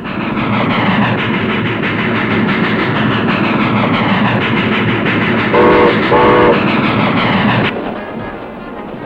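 Steam train running at speed with a fast rattling clatter of wheels on rails, and two short whistle blasts a little past the middle. The train noise drops away a little before the end.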